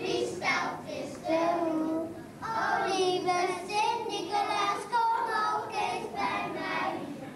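Group of children singing a song together, with a short break about two seconds in before the singing picks up again.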